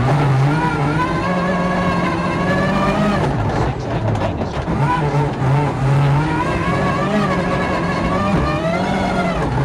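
Ford Focus RS WRC's turbocharged 2.0-litre four-cylinder engine heard from inside the cabin, its revs swelling and dipping with the throttle. The car is stuck in sixth gear, its only gear.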